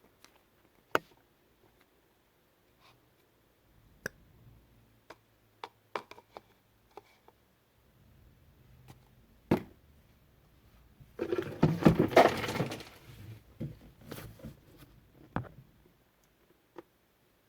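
Handling and mixing slime ingredients: scattered sharp clicks and taps of a utensil and containers, with a dense run of crackling, sticky mixing noise about eleven seconds in that lasts roughly two seconds.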